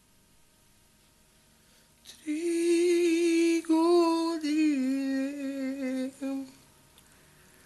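A man humming a slow tune in a high voice: a few long, wavering notes that step downward, starting about two seconds in and stopping a second before the end.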